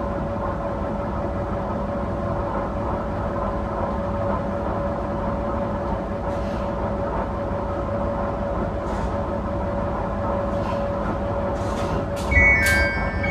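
Diesel railcar running, heard from inside the cabin: a steady engine drone with a held whine over low rumble. Near the end there is a loud thump, then the notes of an onboard electronic chime begin.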